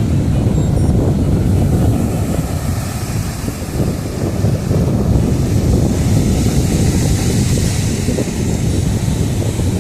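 Strong wind buffeting the microphone: a loud, steady low rumble, with a fainter hiss of wind and surf above it.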